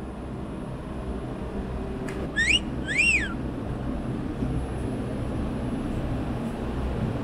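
A two-note wolf whistle about two and a half seconds in: a short rising note, then a longer note that swoops up and falls away. It sounds over a steady low background rumble.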